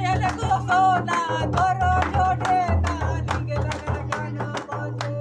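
A man singing a Hindi-language song over music with a steady beat and heavy bass, with hand clapping in time. The voice fades about three seconds in while the beat and claps go on.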